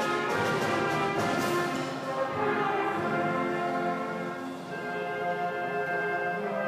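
Student band playing live: brass and winds holding chords, with percussion strokes in the first second and a half. The volume dips briefly past the middle, then a new high chord is held.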